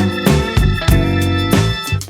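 Background music: keyboard-led instrumental with a steady beat.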